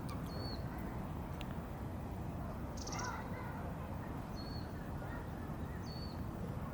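A small bird chirping three times in short, high, alike calls, with a brief buzzy note between them, over a steady low rumble of outdoor background noise.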